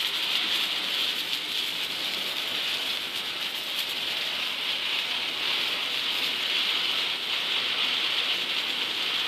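Several ground fountain fireworks (flower pots) burning at once, giving a steady spraying hiss with fine crackling from the sparks.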